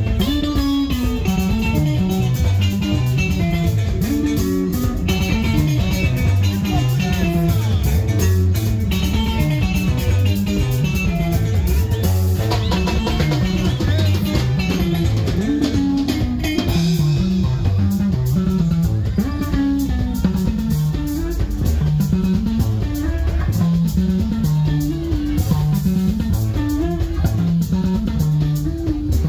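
Live sungura band playing an instrumental passage with no singing: an electric bass guitar carries a busy, moving melodic line over drum kit and guitar.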